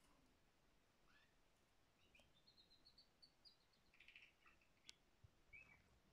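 Canary singing faintly: a rising chirp, then a run of quick high notes, a short buzzy trill, and a last chirp near the end.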